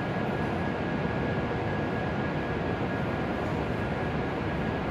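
Steady running hum and whir of a stationary E7 series Shinkansen's onboard equipment at the platform, doors closed, with a thin steady high tone over it.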